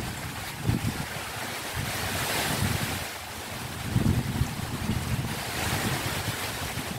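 Sea waves breaking and washing up the beach, the surf hiss swelling twice, with strong wind buffeting the microphone.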